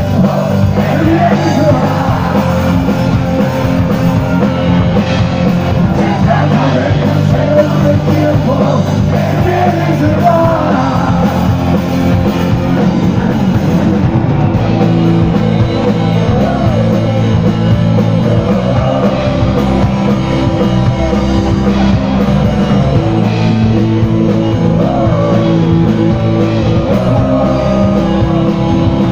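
Live rock band playing loud: electric guitar, bass and drum kit, with a singer shouting and singing into the microphone.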